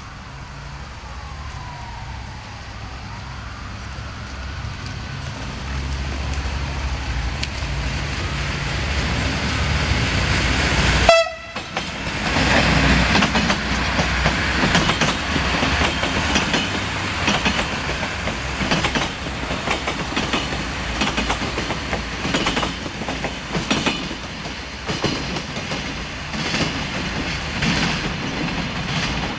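Siemens Desiro diesel multiple unit approaching, its diesel engine drone growing louder, then passing close with a faint high whine and wheels clicking over rail joints and points. The clacking goes on as it draws away, with a brief break in the sound about eleven seconds in.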